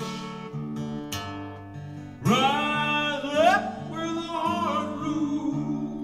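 Acoustic guitar strummed and picked, with a man singing a long note that comes in about two seconds in and bends in pitch before fading.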